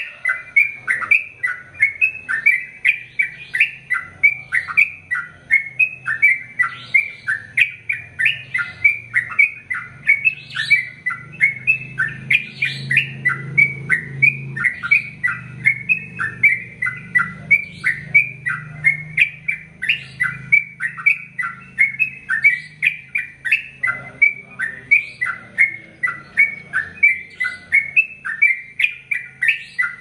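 Yellow-vented bulbul singing a long, unbroken run of rapid chirping notes, about three a second, with no pause: the continuous song that keepers call ropel.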